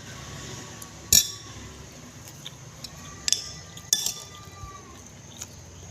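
Cutlery clinking against a plate while eating: one sharp clink about a second in, then a few lighter clinks around the middle.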